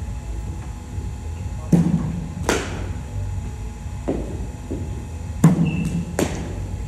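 Ball struck twice by a Kashmir willow cricket bat, each a sharp crack coming under a second after a duller thump, with a softer knock between the two strokes.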